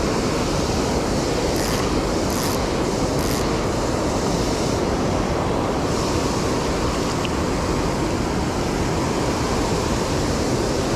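Steady rush of creek water flowing over a riffle.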